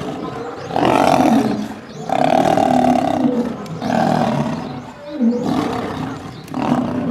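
A series of animal roars: about five long, loud roars, each lasting around a second, with short gaps between them.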